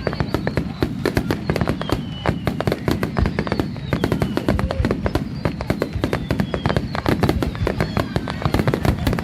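Fireworks finale: a dense, continuous barrage of shell bursts and crackling, many bangs a second, with whistles falling in pitch over them.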